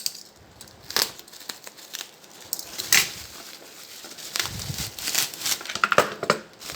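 Packaging being opened by hand: irregular crinkling and tearing of wrapping, with a few handling knocks.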